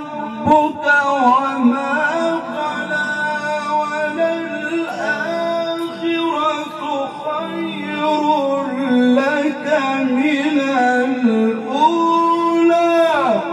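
A man reciting the Quran in the melodic Egyptian style through a microphone, drawing out long ornamented notes that rise and fall slowly, with a long falling note near the end.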